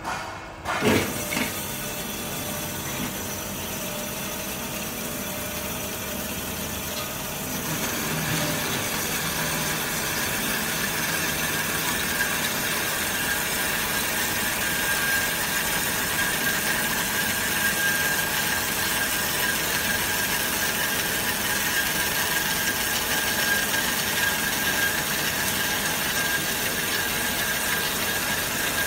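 Automatic horizontal metal band saw running, its blade cutting through a steel round bar. There is a knock about a second in, and the cutting noise grows louder about eight seconds in, then carries on steadily with a high whine.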